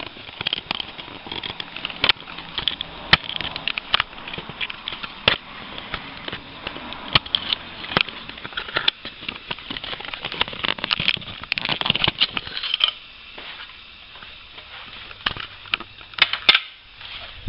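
Plastic car door trim being handled and worked loose: a busy run of sharp clicks, creaks and rustles, easing off for a couple of seconds near the end.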